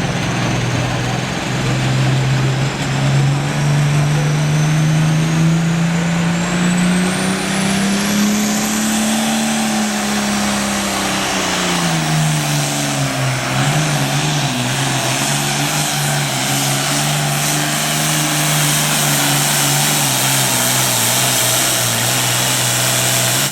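Super Farm class pulling tractor's diesel engine running hard under full load as it pulls the sled. The engine note climbs to a peak partway through, drops, then holds steady, and a high whistle rises in pitch over the first several seconds. The sound cuts off abruptly at the end.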